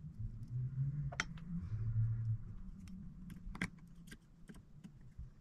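Small, sharp metal clicks and taps, irregular and a few seconds apart, from a screwdriver and small parts being worked on a disassembled Tillotson diaphragm carburetor from a chainsaw, as a small screw in the metering lever shaft is turned. A low hum sits under the first couple of seconds.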